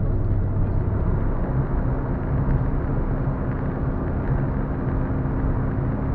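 Car driving at road speed, heard from inside the cabin: steady engine drone and tyre and road noise, the engine hum shifting to a higher pitch about a second and a half in.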